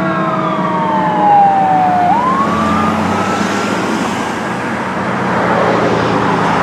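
Fire engine siren wailing. The pitch slides down for about two seconds, then jumps back up and climbs again. In the second half the siren fades under steady traffic and engine noise.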